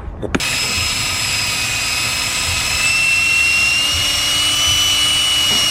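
A high-speed rotary power tool starts about half a second in and runs steadily with a high whine, its pitch rising slightly about three seconds in. It is cleaning carbon buildup off the piston tops and the head mating surface of an engine block.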